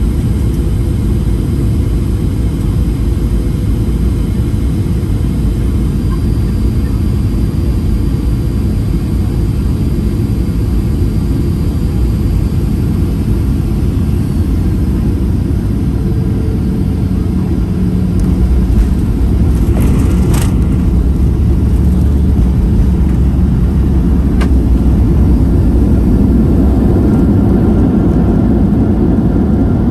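Cabin noise of a Boeing 737-800 on final approach and landing: a steady, loud rush of airflow and CFM56 engine noise. About two-thirds of the way in a sharp thump sounds and the noise steps up and grows louder to the end, with a couple of short clicks.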